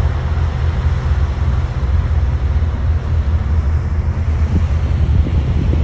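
Heavy diesel engine of a motor grader running steadily under load, a deep continuous rumble, with wind buffeting the microphone.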